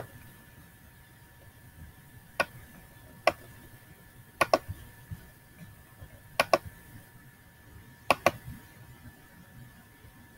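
Computer mouse clicking: a few single clicks, then three quick double-clicks about two seconds apart. A faint steady high-pitched whine runs underneath.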